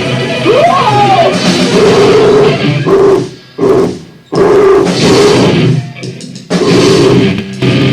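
Loud, lo-fi noisecore: distorted guitar and drums with a gliding pitch near the start. The playing cuts off abruptly several times and starts again.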